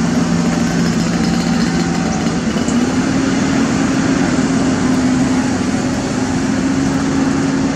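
Heavy diesel engine of construction equipment running steadily under a dense rushing noise, its hum shifting slightly in pitch about two and a half seconds in.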